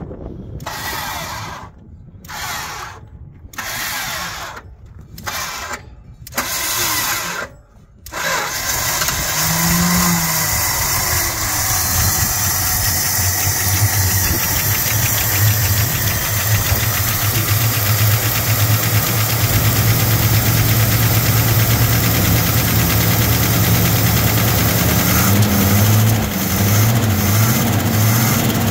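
1967 Dodge Charger's 383 big-block V8 cranked on the starter in several short bursts, then catching about eight seconds in and running steadily, its revs rising and falling near the end. It is its first start in years after long storage, running on fuel primed into the carburetor bowls rather than from its own tank.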